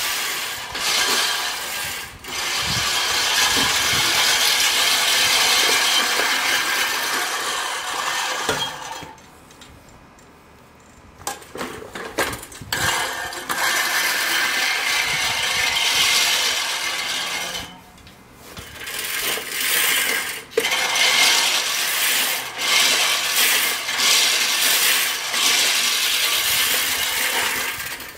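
Sun Joe reel lawn mower's spinning reel blades whirring and clicking as it is pushed through grass. It stops for a couple of seconds about nine seconds in and briefly again around eighteen seconds.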